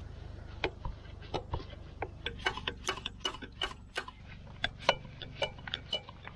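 A run of sharp metallic clicks and ticks, several a second and uneven in spacing, over a faint steady low hum.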